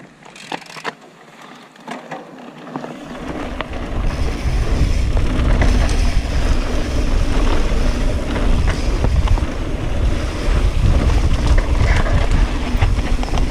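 Mountain bike descending a dirt trail: wind buffeting the GoPro's microphone and tyres running over dirt, with scattered sharp clicks from the bike. Fairly quiet for the first three seconds, then a loud low rumble as the speed builds.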